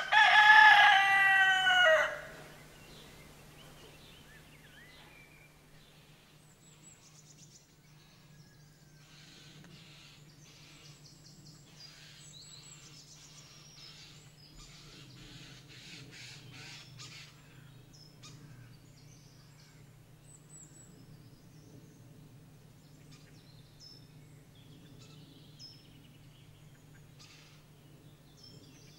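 A rooster crowing once, loud, for about two seconds, the call dropping in pitch at its end. After it, faint high bird chirps over a steady low hum.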